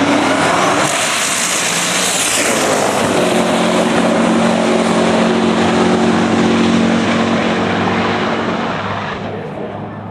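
Twin-turbocharged 472 cubic-inch Chrysler wedge big-block V8 at full throttle, launching off the line on a drag pass and pulling hard down the strip. It fades over the last couple of seconds as the car gets further away.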